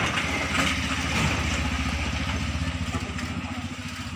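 Small motorcycle or scooter engine running at idle, a steady pulsing low rumble that fades near the end.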